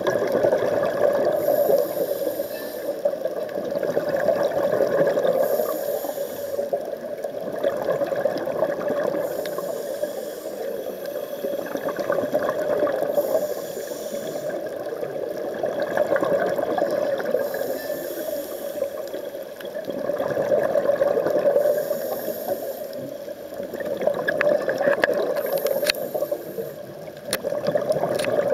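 Scuba diver breathing through a regulator underwater: a hiss on each inhale, then a louder rush of exhaled bubbles, about one breath every four seconds. A few light clicks near the end.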